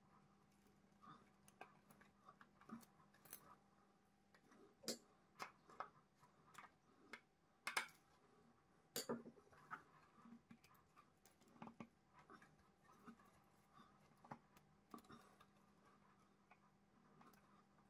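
Near-silent hand work on a hard stone countertop: scattered small clicks and taps of a screwdriver and small parts being handled and set down, the sharpest knocks about eight and nine seconds in.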